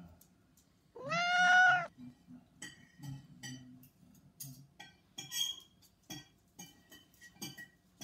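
A cat meows once, one long meow about a second in that rises slightly and holds for nearly a second. After it comes a run of light clicks and small metallic clinks.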